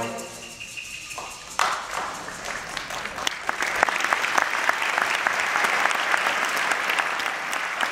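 The band's last held note fades away, and then audience applause starts about a second and a half in and swells to a steady clapping.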